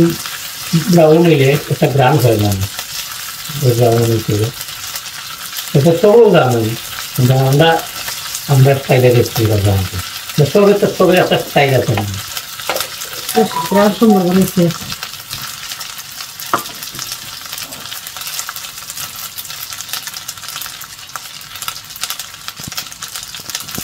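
Ginger and garlic frying in oil in a nonstick wok, sizzling steadily. For the first fifteen seconds a silicone spatula stirs and scrapes the pan in a run of loud squeaky strokes, then the stirring stops and only the sizzle goes on.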